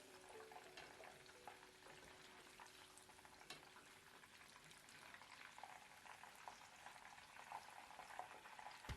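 Faint sizzle of chicken pieces deep-frying in hot oil in a wok, an even hiss with scattered small crackles.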